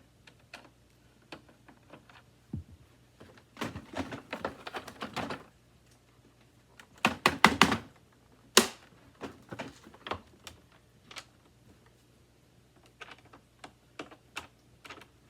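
Scattered clicks and knocks from the plastic housing and screws of a Hoover WindTunnel 2 upright vacuum being handled, with two busier runs of rapid clicking and rattling. The loudest run comes about seven to eight seconds in, followed by a single sharp click.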